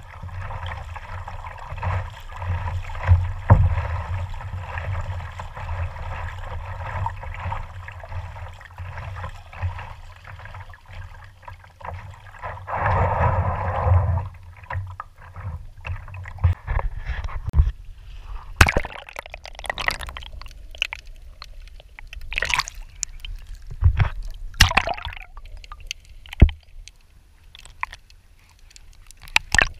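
Sea water sloshing and gurgling around an action camera in its waterproof housing held at the surface, with a louder surge about halfway. After that the camera goes under and the wash gives way to scattered underwater clicks and knocks.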